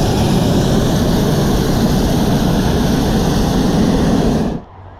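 Hot air balloon's propane burner firing in one long blast, a loud steady roar that cuts off sharply near the end.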